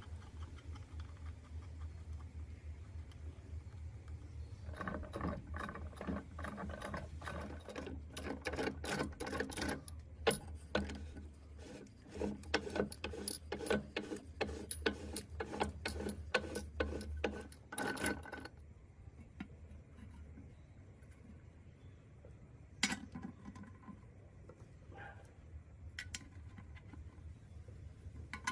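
Metal parts clicking and rattling rapidly over a low hum, both stopping about two-thirds of the way through; after that only a few single clicks.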